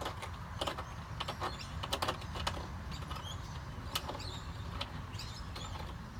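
Scattered light clicks and knocks over a steady low hum, with faint short high chirps in between.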